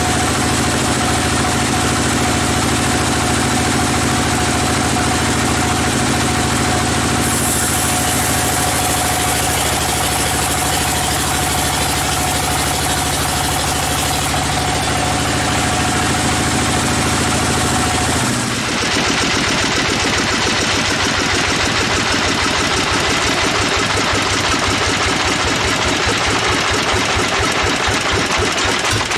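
Sawmill machinery's engine running steadily with a constant tone. About eighteen seconds in the sound changes to a rapid, even pulsing.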